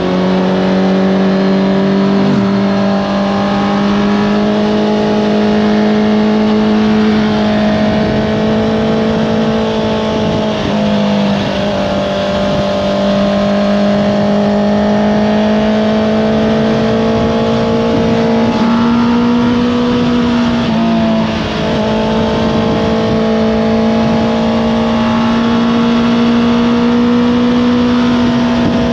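Honda CBR650R's inline-four engine running at steady high revs through an Akrapovič exhaust. Its pitch dips and recovers a few times as the throttle eases and opens again.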